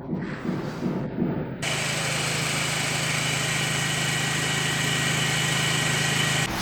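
An uneven low pulsing, then about a second and a half in a leaf blower comes in abruptly, running steadily: a low motor hum and a high whine over a strong rush of air. It cuts off suddenly just before the end.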